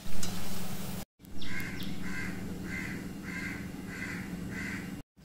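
Cutlets frying in hot oil in an iron wok: a short sizzle with a sharp click near the start. After a break, a bird calls six times at an even pace over a low steady hum.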